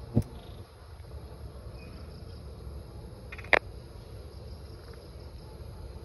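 Steady high chirring of night insects over a low rumble, broken by two short sharp clicks: one just after the start and a louder one about three and a half seconds in.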